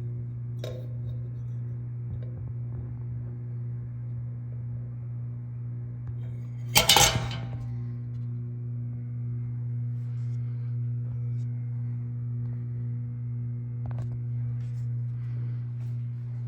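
Harbor Breeze Springfield II ceiling fan running steadily with a low motor hum. A brief clinking clatter, the loudest sound, comes about seven seconds in.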